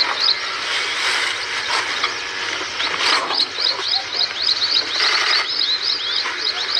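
A bird calling in quick series of short, high chirps, several a second, over a steady outdoor hiss. The chirping stops near the start and picks up again about three seconds in.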